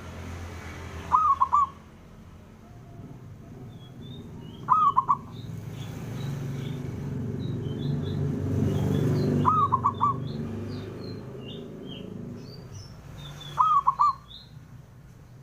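Zebra dove (perkutut) cooing: four short bouts of quick rolling coo notes, a few seconds apart. Faint high chirps from small birds come in between, over a low rumble that swells mid-way.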